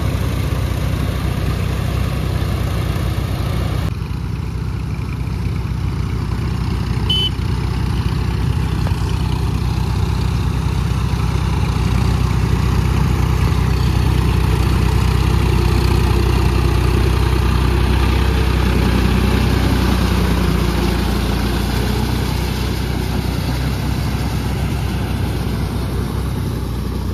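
Diesel engines of a John Deere and a New Holland tractor running steadily while dragging levelling blades through deep mud. The sound changes abruptly about four seconds in, grows louder past the middle and eases off near the end.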